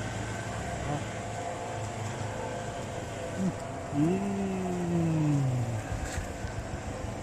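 A steady low mechanical hum, like a running vehicle. About four seconds in, a drawn-out pitched sound that falls slowly in pitch lasts nearly two seconds.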